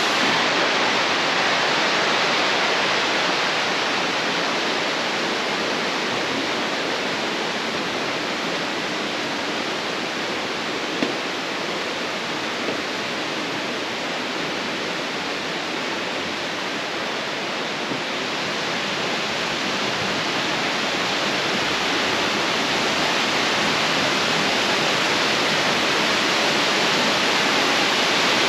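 Steady rush of cascading water from a mountain waterfall, an even hiss with no separate splashes, easing off a little in the middle and growing louder again toward the end. A single brief click about eleven seconds in.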